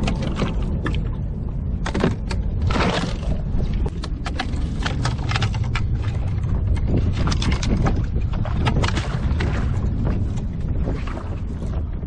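Steady low wind rumble on the microphone and water washing against a plastic fishing kayak's hull, with many scattered clicks and light knocks.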